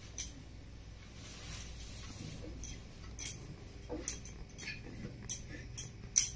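Short sharp clicks and scrapes of hand work at a boti, the Bengali floor-mounted curved blade, among fish scales and trimmings: some ten scattered ticks, most of them from about two and a half seconds in, over a faint steady low hum.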